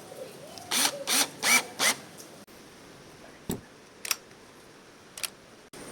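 Tool work on a rim lock being fitted to a wooden door: four short noisy bursts about a third of a second apart, then three separate sharp clicks.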